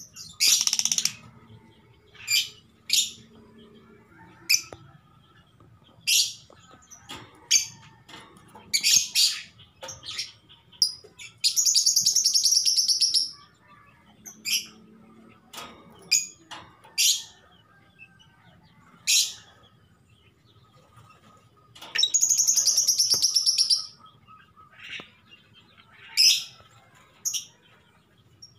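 Female Fischer's lovebird calling for a mate in breeding condition: sharp, high chirps at irregular intervals, with two longer chattering calls of about two seconds each, one near the middle and one about three-quarters in.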